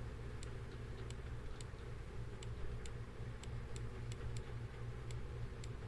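Light, sharp computer-mouse clicks, about a dozen at an uneven pace, over a low steady hum.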